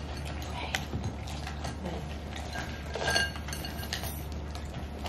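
Boiled crawfish shells clicking and clinking against a glass bowl as a hand digs through the pile. The clicks are irregular, with a louder cluster about three seconds in.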